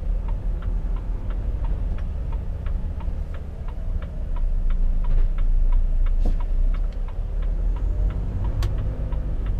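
Truck's turn-signal indicator ticking evenly, about three ticks a second, over the low steady run of the Volvo FH's diesel engine, heard inside the cab while turning through a roundabout.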